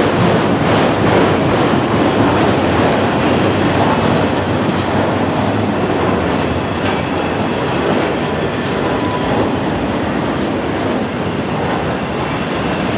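Freight train of enclosed autorack cars rolling past at close range: a steady rumble of steel wheels on rail, with the clack of wheels over rail joints.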